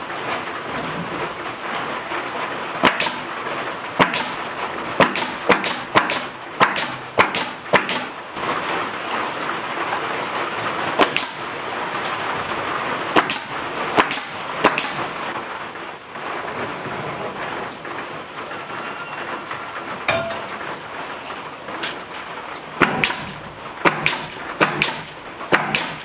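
Steady rain on a metal roof, with sharp cracks of a pneumatic nail gun driving nails into rough sawn ceiling boards. The shots come in quick runs about half a second apart, several between about three and eight seconds in, a few more in the middle, and another run near the end.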